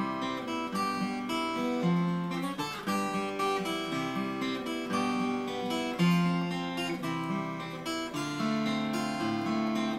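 Steel-string acoustic guitar played solo, an instrumental passage of picked notes and chords, each note ringing out and decaying.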